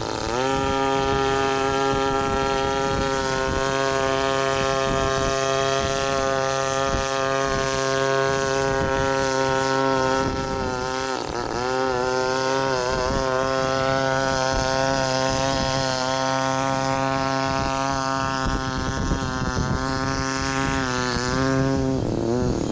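The small combustion engine of a hybrid multirotor's generator set starts up about half a second in, quickly rising to a steady running speed over the hum of the rotors. Its pitch wavers a few times as the craft manoeuvres and descends, and it cuts off shortly before the end.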